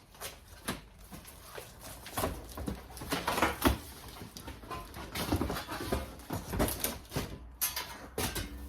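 Irregular rustling, scraping and sharp knocks of packaging being opened and handled by hand.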